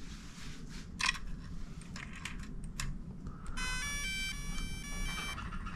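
DJI Mini 2 drone powering up: a short start-up tune of electronic beep tones lasting about two seconds, beginning a little past halfway, preceded by a few faint clicks.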